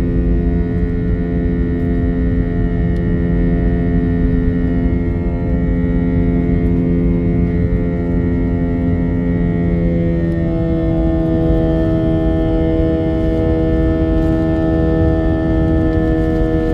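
An airliner on takeoff: a steady, multi-toned hum over a low rumble, with the set of tones shifting to new pitches about ten seconds in.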